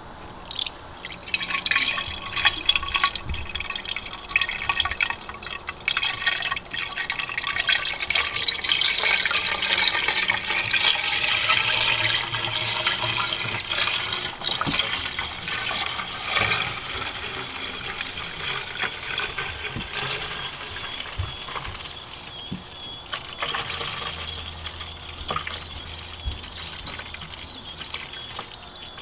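Coolant being poured into the BMW X5 E70's cooling system through the expansion reservoir, to refill it after a drain. The pour runs steadily with a tone that rises slowly in pitch, then tapers off over the last several seconds.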